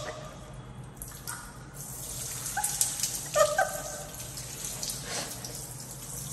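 Hand-held bidet sprayer hissing as its jet of water sprays onto clothing, with a few short squeaks around the middle.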